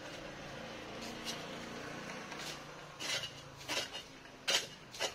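A metal digging tool striking hard, dry soil and stones: about four sharp clinking strikes in the second half, each with a short metallic ring.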